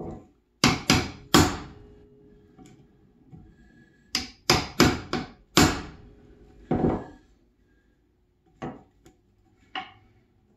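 Claw hammer striking the handle of a cheap Stanley chisel, chopping out a joint in pine. Three quick blows, then a run of five, then a duller knock, and a few lighter taps near the end.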